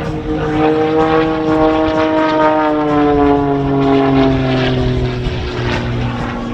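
Extra 300S aerobatic plane's Lycoming IO-540 six-cylinder engine and propeller droning in flight, its pitch falling between about two and four seconds in, then holding steady at the lower note.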